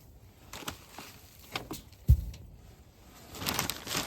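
Straw being put into a turkey house: scattered rustles and knocks, one loud low thump about two seconds in, and a longer rustle near the end.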